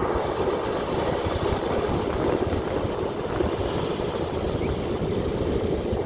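Ocean surf breaking on a sandy beach: a steady rush of waves, with a rough low rumble from wind on the microphone.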